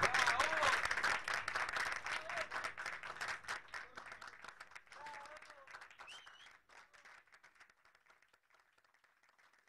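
Audience applauding with a few voices calling out. The clapping fades away and is gone after about seven and a half seconds.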